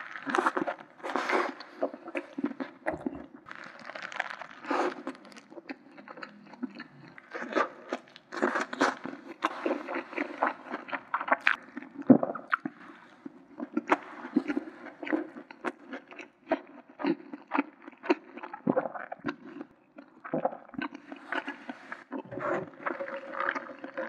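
Close-miked biting and chewing of a McDonald's 1955 double burger: irregular wet chews, smacks and soft crunches in quick succession.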